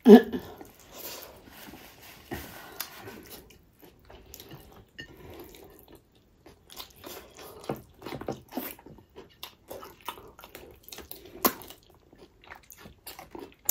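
Close-up eating sounds: wet chewing, lip smacking and sucking as pickled pork feet and rice are eaten by hand, heard as a scatter of short sticky clicks and smacks, with a louder mouth sound at the very start.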